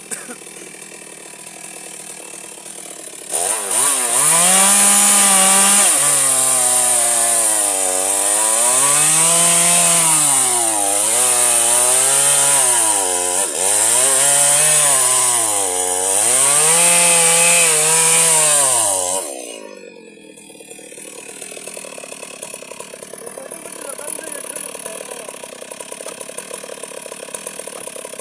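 Electric chainsaw running and cutting firewood: the motor starts about three seconds in, its pitch drops and recovers several times as the chain bogs under load in the wood, and it stops near the end of the cut, with quieter mechanical noise before and after.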